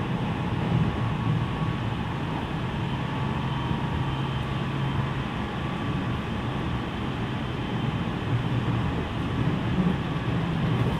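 JR West 207 series electric train running between stations, heard from inside the carriage: a steady low rumble of the running gear with a faint steady whine above it.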